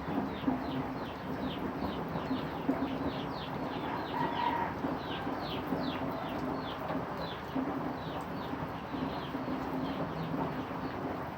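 Steady rain falling, with a run of short, high, falling chirps repeating two or three times a second throughout, over a low intermittent drone.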